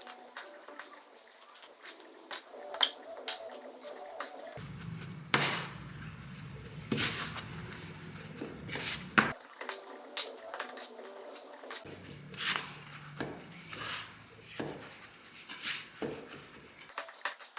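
Kitchen utensils clinking and knocking against a bowl and the counter in scattered, irregular taps.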